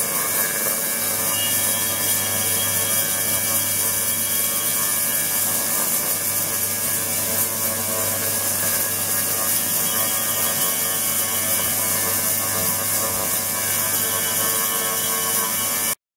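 Water-filled ultrasonic tank running: a steady, hissing cavitation noise with many steady tones layered through it, which cuts off suddenly near the end.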